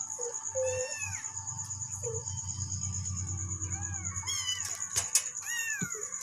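Kittens meowing in short high calls, several times, over a steady low background hum and a faint high steady tone, with a few clicks near the end.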